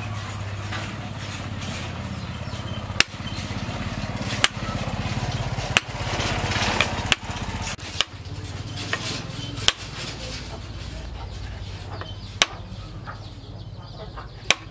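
About eight sharp knocks, spaced a second or two apart, as a wooden knife handle is driven onto its hot tang. A small engine hums steadily underneath.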